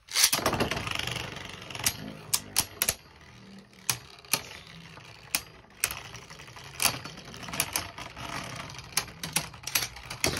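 A Beyblade spinning top is launched into a plastic stadium, loudest right at the start. Then two tops spin and scrape across the plastic bowl, with many sharp clicks as they knock against each other and the stadium walls.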